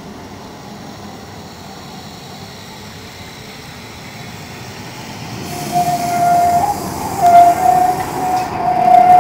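Tram rolling closer with a low rumble, then about halfway in its wheels start a loud, steady, high squeal as they grind through a tight curve, wavering a little in pitch.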